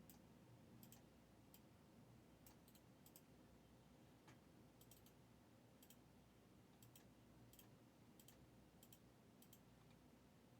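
Near silence with faint, irregularly spaced sharp clicks, about fifteen of them.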